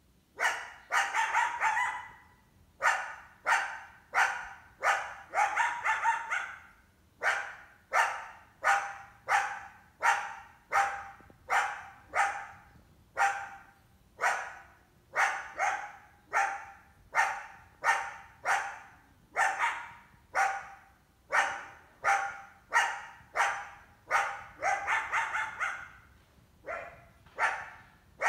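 Coyote barking over and over, sharp barks at about one to two a second, with quicker runs of several barks together near the start, about five seconds in, and near the end.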